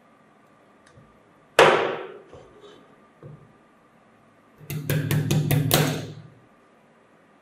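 Metal knocks on a steel bench vise with a pop rivet set in its jaws: one sharp, loud knock about one and a half seconds in, then a quick run of about six sharp metallic taps with a low ringing under them near the end, as the rivet is driven down into the jaw gap.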